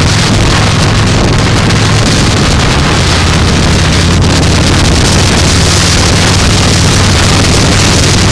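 Motorcycle engine running at a steady cruising speed, a constant low engine note under heavy wind rush on the microphone.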